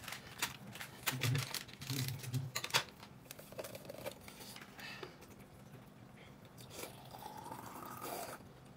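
Quiet eating sounds: chewing, with scattered small clicks and rustles of food and packaging being handled. A few louder clicks come in the first three seconds.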